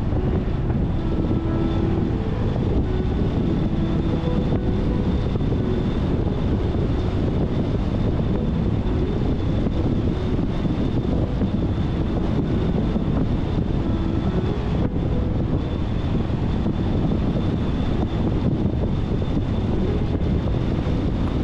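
Car driving at steady speed on smooth asphalt: an even rush of tyre, engine and wind noise with no changes, and a faint steady high whine above it.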